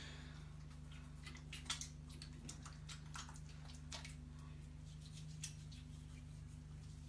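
Hands rubbing together with hand sanitizer gel: soft wet squelching with scattered sharp smacks, the loudest about two seconds in, over a steady low hum.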